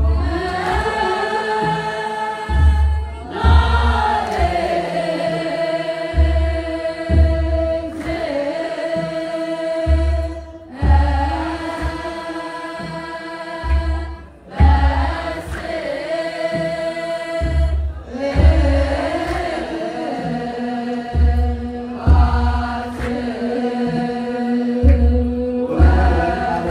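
Ethiopian Orthodox wereb: a group of young girls chanting in unison in Ge'ez, holding long notes that slide up and down between pitches. A deep, steady thump sounds about every second and a half beneath the chant.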